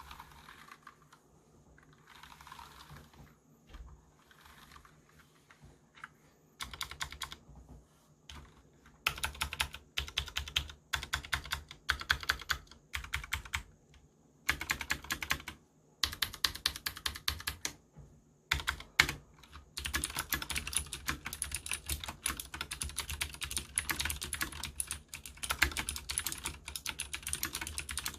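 Leopold FC750R mechanical keyboard with clicky Cherry MX Blue switches being typed on. After a few quiet seconds, short bursts of rapid keystrokes come with pauses between them, then the typing runs on fast and without a break for the last third.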